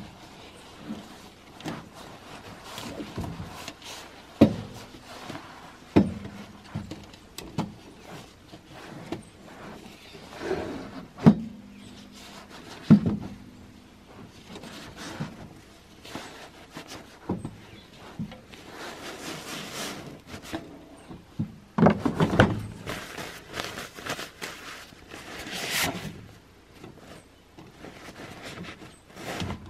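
Nylon fabric rustling as a black stuff sack is packed with gear and closed. Irregular knocks and thumps throughout as items and the sack bump against a plastic truck-bed liner.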